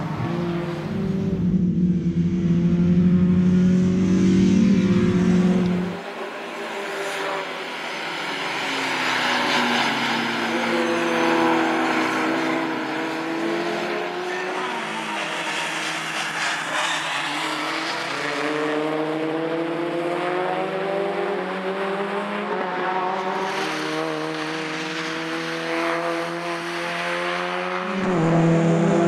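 Small four-cylinder racing hatchbacks driving past on a circuit, their engines revving up and down through the gears, the engine note rising and falling as they pass. The sound changes abruptly about six seconds in and again near the end.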